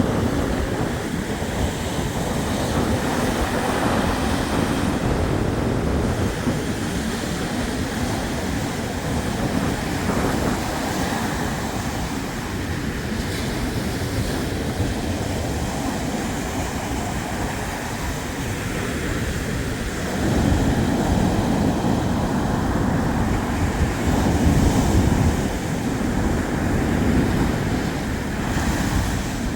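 Black Sea surf breaking and washing on the shore: a continuous rushing noise that swells and eases with each wave, growing louder about two-thirds of the way through.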